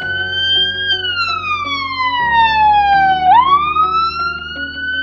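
A wailing siren, its pitch climbing for about a second, sliding down for over two seconds, then climbing again near the end, over background music.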